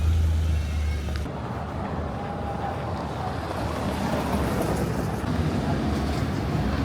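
Steady rumble and noise of a vehicle in city traffic. The sound changes abruptly about a second in, and a low motor tone starts to rise near the end.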